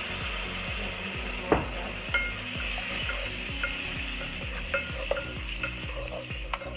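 Red chili paste frying in oil in a steel pot, sizzling steadily, while a spatula stirs and scrapes it with a few sharp taps against the pot; the loudest tap comes about one and a half seconds in.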